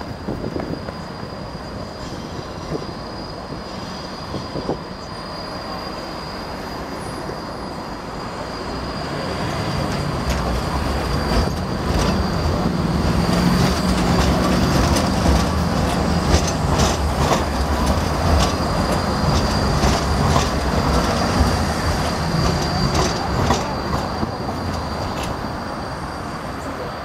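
Basel tram no. 306, a Siemens Combino, coming closer and passing: a low rumble with repeated clicks and clacks from its wheels on the rails, building from about a third of the way in, loudest through the middle and easing near the end. A thin, steady high whine runs throughout.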